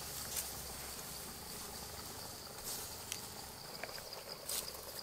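Steady, high-pitched insect chirring, like crickets, over outdoor background hiss, with a few short scattered clicks.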